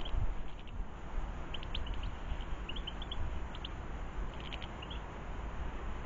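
Small garden birds chirping in short, high notes that come in scattered little clusters, over a low steady rumble.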